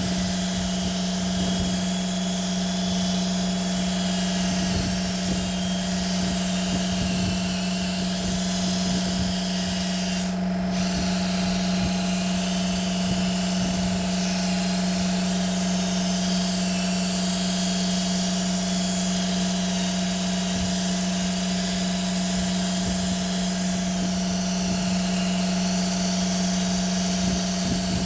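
Handheld electric power tool running at a steady speed with an even hum and no let-up, typical of paint sanding or buffing work.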